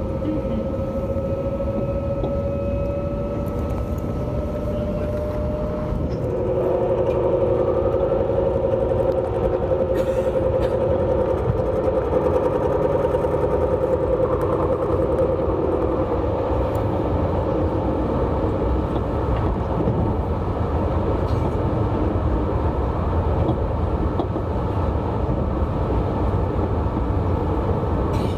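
An Alstom Régiolis train running on the rails, heard from on board: a steady rumble of wheels and track, with a whining drive tone. About six seconds in, the run gets a little louder and a second set of whine tones comes in for around ten seconds before fading back.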